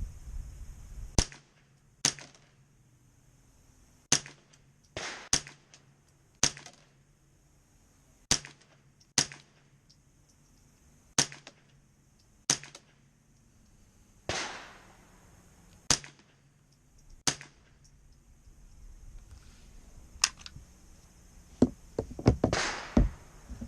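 Winchester Wildcat semi-automatic .22 LR rifle being fired one shot at a time, about fourteen sharp cracks with pauses of one to two seconds between them, then a quicker cluster of sharp sounds near the end.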